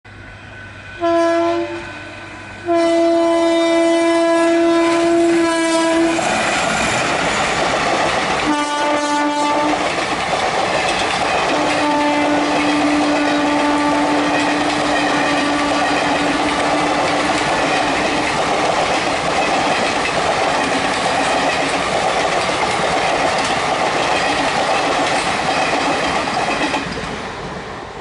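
WAG7 electric locomotive's air horn sounding three blasts: a short one, a long one of about three seconds, then another of about a second. Then the rush and rail clatter of the express coaches passing at speed, fading as the last coach clears near the end.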